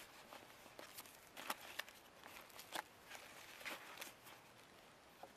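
Faint rustling and a few light clicks of small packaged items being handled while rummaging through a backpack's first-aid pouch.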